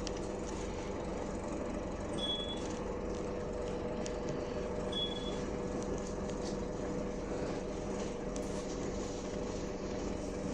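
Scania K310UB bus's 5-cylinder 9.3-litre DC9 diesel engine running steadily, heard from inside the bus, with two short high beeps a few seconds apart.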